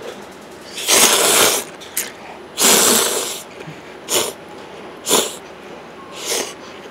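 A person slurping noodles and soup: two long, loud slurps, then a run of short ones about a second apart.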